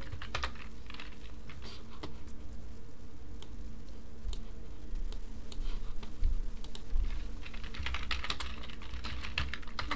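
Typing on a computer keyboard: keystrokes clicking in irregular runs, busiest in the second half, over a faint steady low hum.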